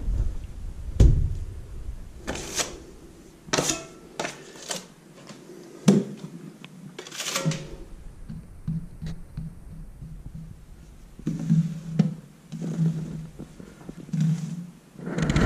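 Steel spatula working plaster mix on a wall: a series of short scrapes and taps, with louder thunks about a second and six seconds in.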